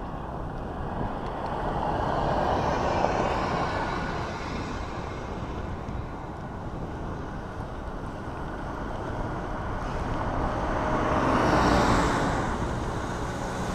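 Wind rushing over the microphone of a camera on a moving bicycle, with road noise. Passing motor traffic swells up and fades twice, a few seconds in and more loudly near the end.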